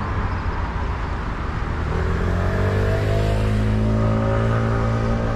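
Motor vehicle engine running close by, its pitch slowly rising from about two seconds in as it accelerates, over a steady street rumble.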